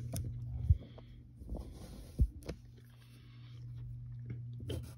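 A graphite pencil scratching faintly on paper. It is broken by two low thumps, about a second and two seconds in, which are the loudest sounds. A steady low hum runs underneath.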